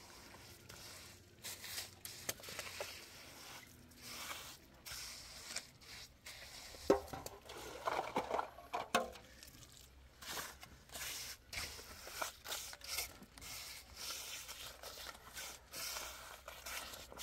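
Irregular scraping and clicking of something being handled, with a louder, denser stretch about seven to nine seconds in.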